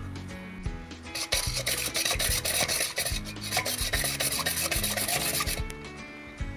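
A plastic whisk beating yogurt and gram-flour batter in a metal pot: fast, scratchy strokes against the pot. The whisking starts about a second in and stops about a second before the end.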